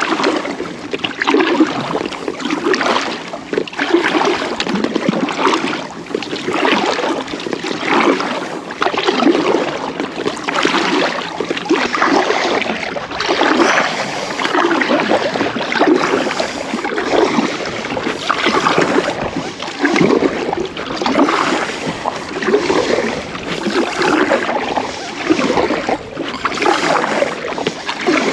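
Kayak being paddled: the paddle blades dip and splash through the water in a steady rhythm, a stroke every second or so, with water washing along the hull.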